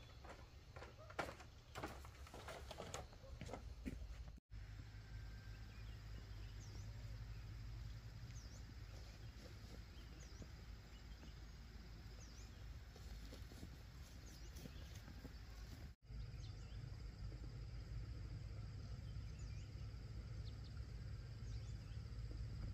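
Quiet rural outdoor ambience: a steady low rumble with scattered faint bird chirps. A few sharp knocks sound in the first four seconds.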